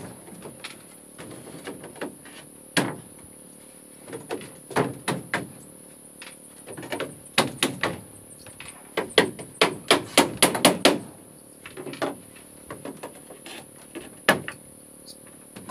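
Hammer driving nails into wooden floorboards, in irregular runs of quick blows with pauses between.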